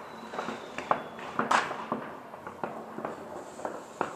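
New Year's Eve firecrackers and fireworks going off in the streets, a run of irregular bangs and pops at different distances, the loudest about a second and a half in. A faint falling whistle, as from a whistling rocket, runs through the first second.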